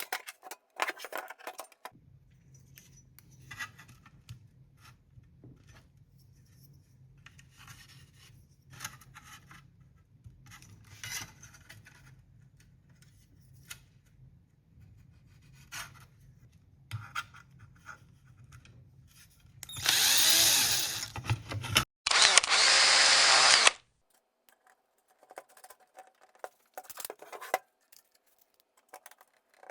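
Scattered light clicks and taps of hand work over a faint low steady hum, then a power tool runs in two loud bursts of about two seconds each, back to back, about two-thirds of the way in.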